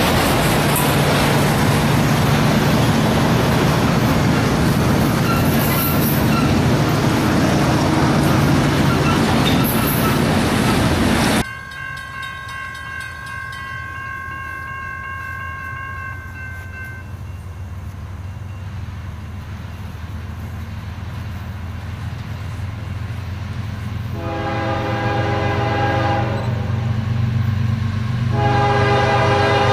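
A freight train of autorack cars rolling past with steady wheel and rail noise. After a sudden cut this drops to a low rumble, and an approaching diesel locomotive's horn sounds two long blasts near the end.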